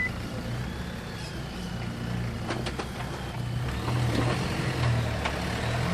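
Jeep JK Wrangler's engine running steadily at low revs while it crawls over rock, getting a little louder towards the end, with a couple of sharp clicks about two and a half seconds in.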